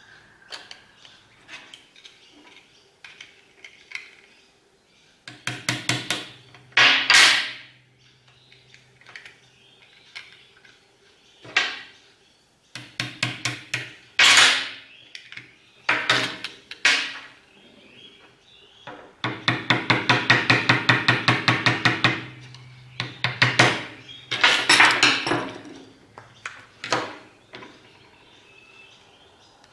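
Steel utility-knife blade prying at the seam of a two-part metal die: several bursts of rapid metallic clicking and scraping, the longest run of clicks a little past two-thirds of the way through.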